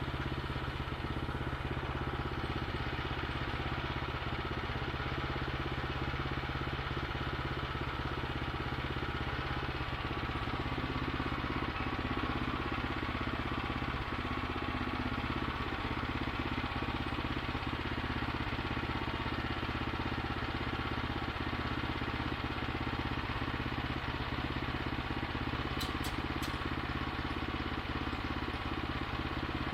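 Small gasoline engine of a portable bandsaw mill running steadily, with a faint click or two near the end.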